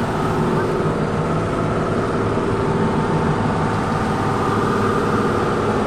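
A vehicle's engine running steadily at an even pace while travelling.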